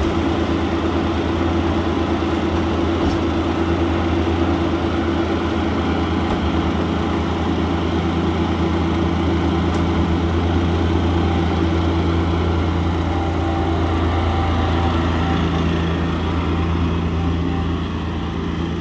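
Engine of an Amazone Profihopper 4WDi ride-on mower-collector running steadily at constant speed. Its pitch shifts and it gets a little quieter near the end as the machine moves off.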